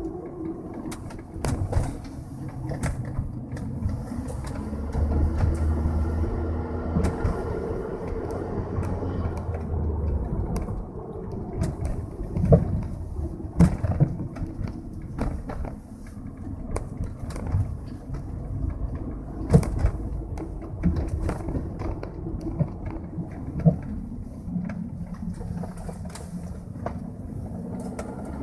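Cabin sound of a 2003 Volkswagen Jetta 1.8T on the move: turbocharged four-cylinder engine and road noise, broken by a string of short, sharp knocks from the car, the loudest about halfway through.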